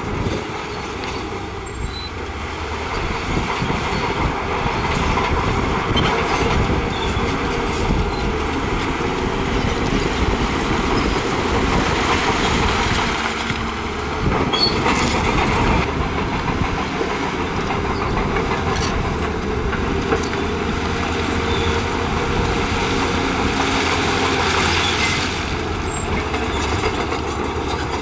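Shantui crawler bulldozer working: its diesel engine runs under load and its steel tracks clank steadily, with scattered knocks as it pushes rock and soil.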